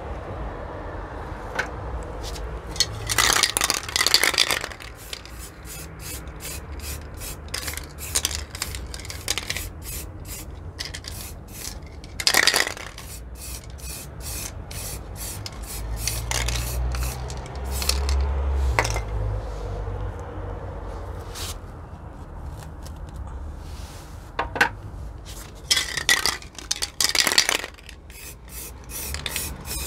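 Aerosol spray-paint can spraying a thin first colour coat of metallic blue onto a plastic part. It goes in many short hissing bursts, with longer hisses about three seconds in, around twelve seconds and near twenty-six seconds.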